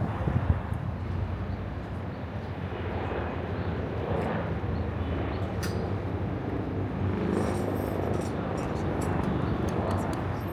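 Outdoor city ambience: a steady low rumble of traffic, with a few knocks in the first half-second.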